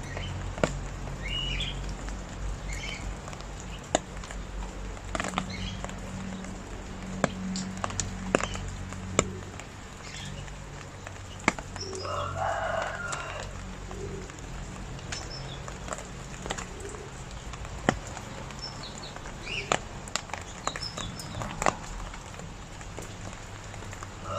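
Steady rain, with heavy drops landing one at a time and ticking sharply and irregularly on a hard surface. A few short bird calls can be heard, the clearest about halfway through.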